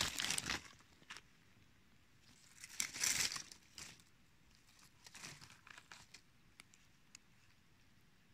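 Dry leaf litter and twigs rustling and crackling in three short bursts, at the start, around three seconds in and around five seconds in, with scattered small snaps in between.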